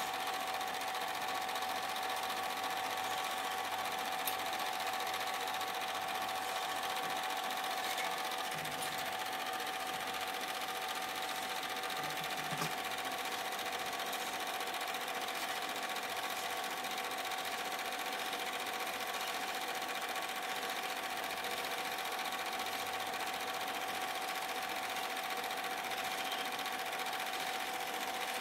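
Super 8 film projector running, a steady mechanical whirr with a constant tone that does not change.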